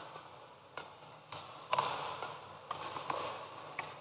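Badminton rackets striking a shuttlecock in a fast rally: a string of sharp pops, about half a second to a second apart, over low arena background noise.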